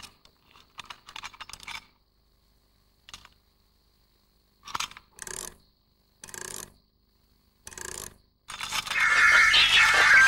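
Clockwork golden mechanical nightingale being wound with a key: a run of small metallic clicks, then several separate ratcheting strokes. About eight seconds in it starts up with a loud, noisy warbling whistle over a whirring rattle, the song of a worn-out mechanism.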